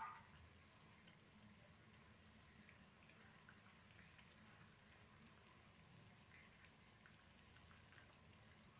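Faint steady sizzle with scattered small pops and crackles: kachoris deep-frying in hot oil.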